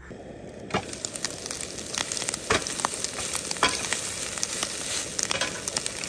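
Food sizzling in a hot pan on a propane camp stove, with frequent sharp crackles, under a heap of arugula being turned with a spatula.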